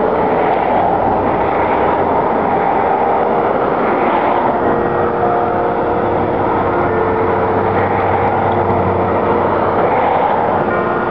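Church bells ringing, their long, overlapping tones half buried under a steady, loud rushing noise.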